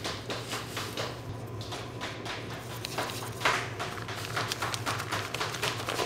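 Quick, irregular tapping and knocking from hands-on bakery work, over a steady low hum of equipment, with one louder rush of noise about three and a half seconds in.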